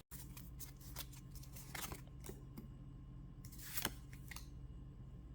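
Faint, scattered ticks and rustles of Pokémon trading cards being handled and slid against one another.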